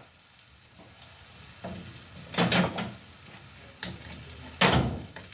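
Egg omelette sizzling in a frying pan on a gas burner while the pan is shaken and a spatula scrapes under it, giving several short scrapes and knocks over the steady sizzle, the loudest near the end.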